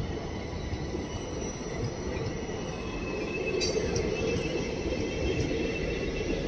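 Passenger coaches of an express train rolling past as it pulls out and gathers speed: a steady rumble of wheels on rails with thin, high wheel-squeal tones. A brief high squeak comes about three and a half seconds in, and the rumble grows a little louder from about three seconds.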